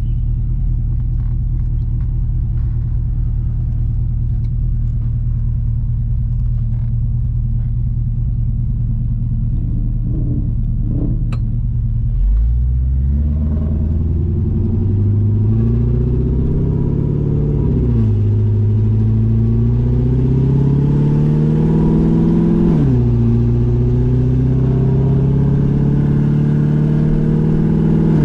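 Straight-piped C6 Corvette V8 with longtube headers, running steadily at low revs. About twelve seconds in it pulls away and the revs climb. There are two upshifts, where the pitch drops sharply, and then it holds speed with the revs slowly rising.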